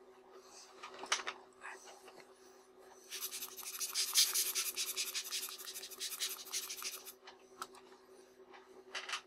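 Scratchy rubbing for about four seconds in the middle, from a glass lens element being worked on during cleaning, with a few light handling clicks before it and a short burst of noise near the end.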